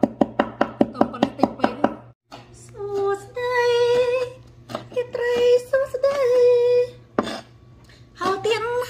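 Cleaver chopping garlic on a wooden cutting board, quick strikes about four a second, which stop about two seconds in. After a short break a high voice sings long held notes.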